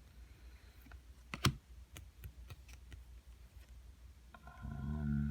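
Trading cards being handled and flipped through by hand: light scattered clicks and slides of card stock, with one sharper snap about a second and a half in. A brief hummed voice sound near the end.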